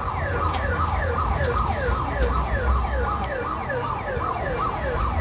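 Siren-like electronic wail repeating fast, each sweep falling in pitch, about three a second, over a low rumble of fairground noise.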